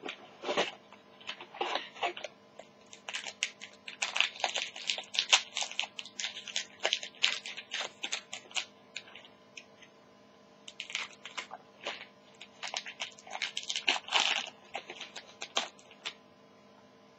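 Foil trading card pack wrapper being torn open and crinkled by hand, in quick irregular crackles that come in two busy spells.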